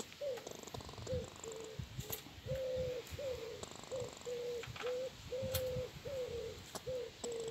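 Common wood pigeon cooing its repeated phrase: a short coo, a long stressed coo, a short coo, a pause, then two short coos, coming round about every three seconds. A few sharp clicks fall between the coos.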